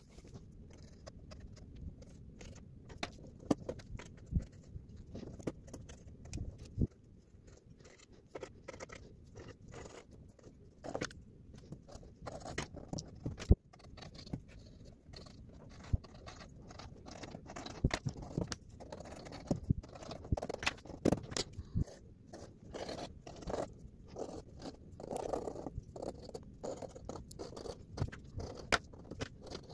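Pencil scratching on drawing paper in rapid, short strokes, with scattered small clicks and taps.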